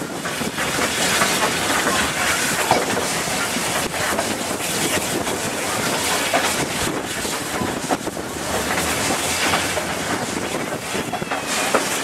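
Small industrial steam tank locomotive under way, heard from its own footplate: a dense, steady noise of the engine working and its wheels running on the track.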